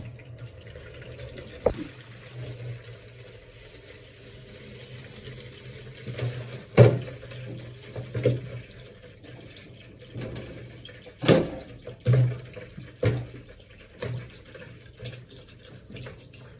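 Tap water running into a sink while vegetables are washed in a bowl, with several sharp knocks and clatters, the loudest about a third and two thirds of the way through.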